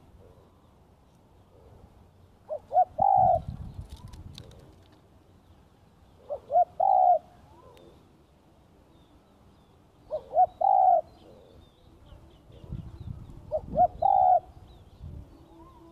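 Spotted dove cooing: four phrases about four seconds apart, each two short notes followed by a longer drawn-out note. A low rumble sits under the first and last phrases.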